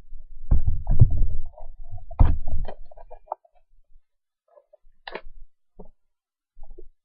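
Cardboard trading-card box being opened and handled close to a laptop's built-in microphone: two clusters of dull knocks and rubbing, then a few lighter clicks.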